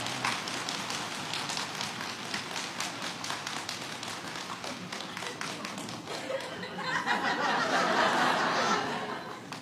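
Studio audience drumming their hands on their laps in a drum roll, a fast patter of slaps, with crowd laughter and voices swelling and louder about seven seconds in.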